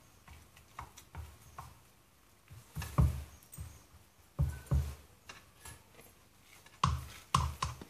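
A silicone spatula presses and pats minced meat and vegetable mixture firmly down into a metal loaf pan to leave no air gaps. It makes scattered soft thumps and scrapes, with a cluster of louder knocks near the end as more mixture is tipped in from a plastic bowl.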